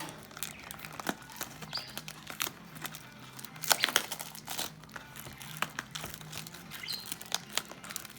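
Plastic wrapping on a trading card hobby box crinkling and tearing as the sealed box is unwrapped. It comes as an irregular run of sharp crackles, loudest about four seconds in.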